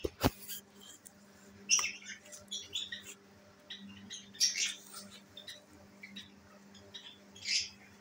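Lovebirds chirping and squawking in short scattered bursts, with a sharp click just after the start and a faint steady hum underneath.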